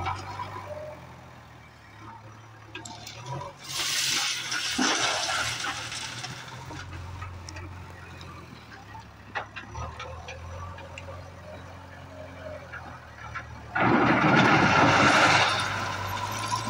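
JCB 3DX backhoe loader's diesel engine running steadily, with two loud rushes of crushed-stone railway ballast rattling and pouring out of the loader bucket: one about four seconds in, and a louder one near the end as the bucket tips onto the stone pile.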